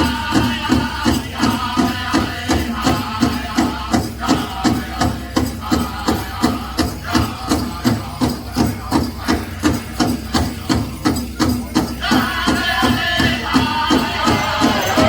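Pow wow big drum beaten in a steady, even beat of about two strokes a second, with the drum group's high singing voices over it. The singing drops out for several seconds in the middle while the drum keeps going, then comes back near the end, with a metallic rattle of jingle-dress cones over the beat.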